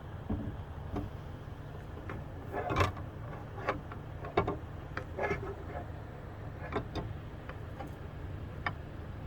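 Irregular sharp clicks and knocks of locksmith lockout tools working at a pickup truck's door, louder ones about three and four and a half seconds in, over a steady low hum.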